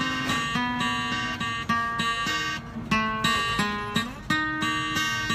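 Solo acoustic guitar playing the closing instrumental bars of a country-style song: a run of plucked notes and strummed chords, each note ringing briefly before the next.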